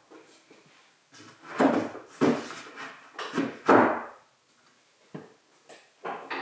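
A wooden sheet tabletop being pushed and slid into place on a wooden bench frame. There are several short rubbing scrapes and knocks of wood on wood, and then a single sharp tap about five seconds in.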